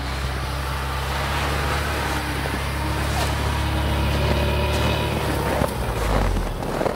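UAZ Patriot SUV engine running under load as the vehicle drives through deep snow, steadily growing louder as it comes close, its note dropping near the end.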